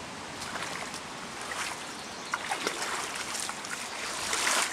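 Floodwater running steadily, with rustling and crackling of grass and cedar brush being pulled aside by hand, loudest just before the end.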